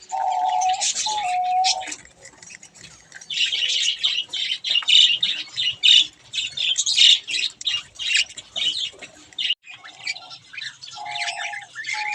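A flock of budgerigars chattering and chirping in quick, overlapping high notes, with a few short, lower, held calls near the start and again near the end.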